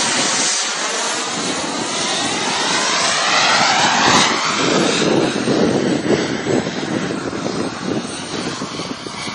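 Fighter jet flying a low display pass, its engine a loud, steady rushing noise with a sweeping, phasing whistle as it goes by. The sound turns rougher and lower after about five seconds and eases off near the end.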